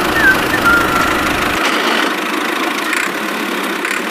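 Small motor of a DIY mini tractor running steadily.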